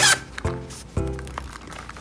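Background music playing a simple melody of held notes, with a short handling noise at the very start.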